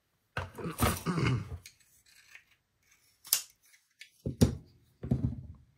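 Handling of a folding knife: scattered sharp metallic clicks and rustles, with a crisp click about three and a half seconds in and a few more knocks near the end.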